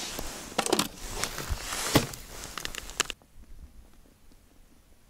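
Plastic bucket and its lid handled on snowy ice: crunching and clicking, with a sharp knock about two seconds in. The sound cuts off abruptly about three seconds in and is faint after that.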